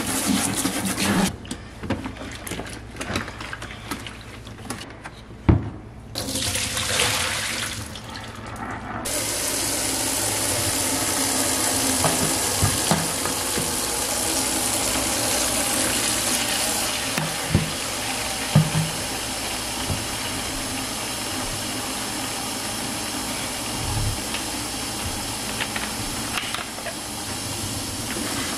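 Water from a kitchen faucet running into a plastic spin-mop bucket in the sink, filling it. The flow starts and stops at first, then runs as a steady stream from about nine seconds in, with a few light knocks.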